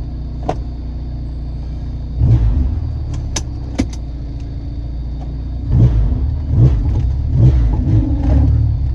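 Turbocharged Honda K-series four-cylinder in a 1990 Acura NSX running with a steady low rumble, rising briefly about two seconds in. From about six seconds in it surges in uneven pulses as the driver tries to pull away, with a few sharp clicks along the way.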